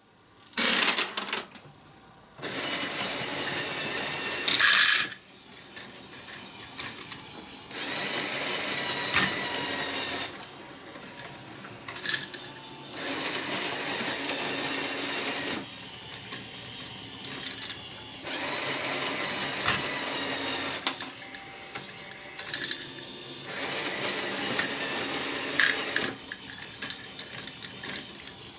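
LEGO electric motors driving plastic gears, running in stretches of about two and a half seconds, five times, with a high whine. Between the stretches there is a quieter hum with light plastic clicks. Under a second in, a short loud clatter of plastic balls landing in a plastic container.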